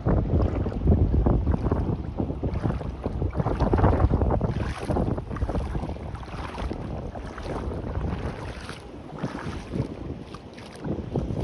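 Sea water washing and sloshing at the shore, with wind rumbling on the microphone; the level surges and eases irregularly and is lower in the second half.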